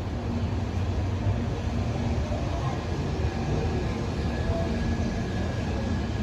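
Electric train running through the station at a platform: a steady low rumble with a faint motor hum.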